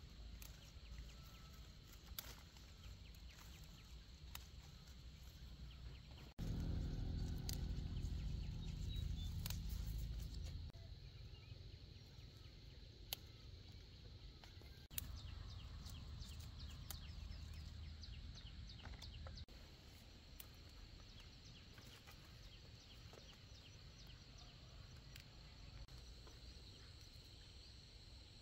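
Chili peppers being snapped off their plants by hand: scattered small snaps and leaf rustles over a steady high insect buzz. A low rumble rises suddenly about six seconds in and fades out about four seconds later, with a weaker one for a few seconds past the middle.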